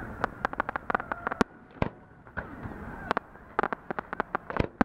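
Aerial fireworks bursting as a rapid series of sharp bangs and pops, in two quick clusters: one shortly after the start and one near the end.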